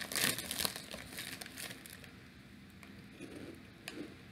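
A bag of Bugles Ranch corn snacks crinkling as it is pulled open, loudest in the first second, then only faint rustles and a few small clicks.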